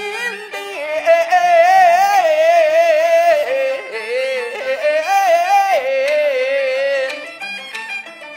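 Peking opera old-man (laosheng) voice singing one long drawn-out melismatic phrase in fan'erhuang slow metre, the held notes wavering and sliding. A jinghu fiddle and a small Chinese ensemble accompany it. The voice ends about a second before the close, leaving the jinghu playing alone more softly.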